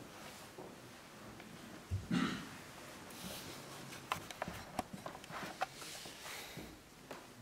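Rustling with scattered small clicks and knocks, as of clothing and objects being handled. A thump about two seconds in, followed by a short, louder burst, is the loudest sound.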